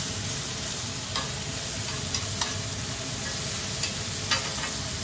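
Head-on shrimp sizzling steadily in oil on a hot griddle pan. A few short clicks come from metal tongs turning them.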